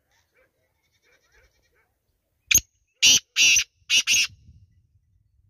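A male black francolin gives its loud, harsh call: five rasping notes in quick succession, starting about two and a half seconds in and lasting just under two seconds.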